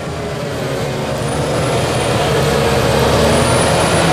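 Bulldozer's diesel engine running steadily, growing gradually louder.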